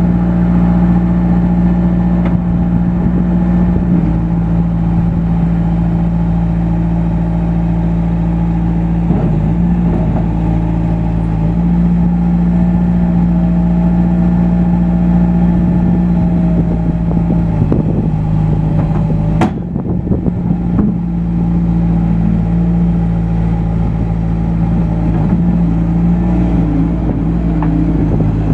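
Bobcat S150 skid steer's diesel engine running at a steady speed. There is a sharp click about two-thirds of the way through.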